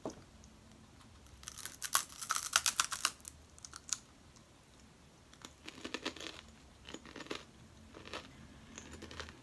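Dry, brittle crackling and clicking of a dried giant water bug's shell being broken at: a dense flurry of clicks about two seconds in, then scattered smaller clicks later.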